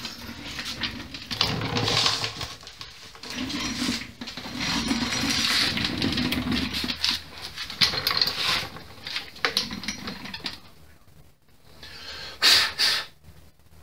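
Filler being spread over the boat hull with a spreader: long rasping scraping strokes, with short pauses between them.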